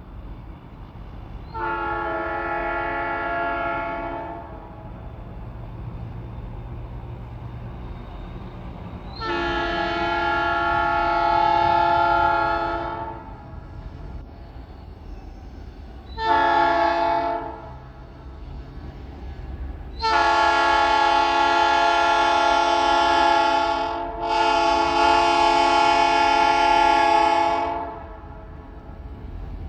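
Locomotive air horn of Grand Elk #4125 blowing long, long, short, long: the grade-crossing signal. The final long blast is broken briefly in the middle. The locomotive's low rumble runs underneath.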